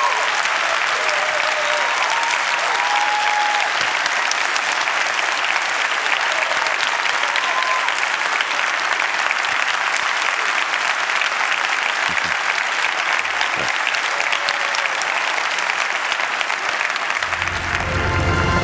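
Large audience applauding steadily, with a few cheers in the first few seconds. Music comes in near the end.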